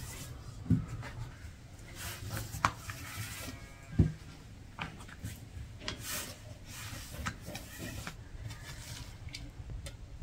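Rubbing and scraping on a hard surface with scattered light clicks, a dull thump about a second in and a louder one about four seconds in.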